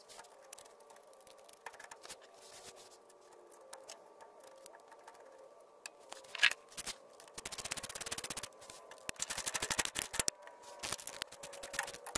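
Socket ratchet clicking in quick runs as the factory bolts are driven in to fasten a transmission mount to the transmission, with scattered small metal clicks and clinks before it, over a faint steady hum.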